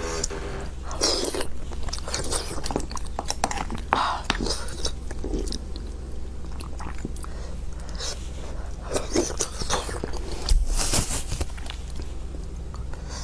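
A person biting and chewing food close to the microphone, with irregular mouth clicks and several louder bites about one, four, nine and eleven seconds in.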